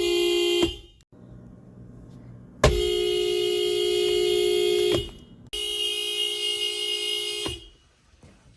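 Toyota Prius horn sounding in steady, held blasts: one ends just under a second in, then a long blast of about two and a half seconds, then another of about two seconds.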